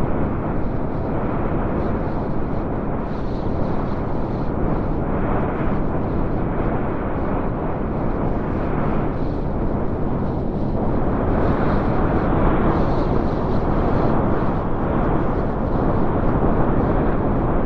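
Blizzard wind sound effect: a steady, heavy rush of storm wind with deep rumble and gusts that swell and ease, strongest about two-thirds of the way through.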